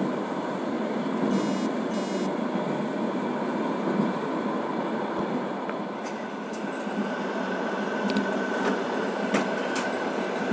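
Steady running noise of a moving train heard from inside the carriage: wheels on the track, with a few sharp clicks. A faint steady whine joins about six seconds in.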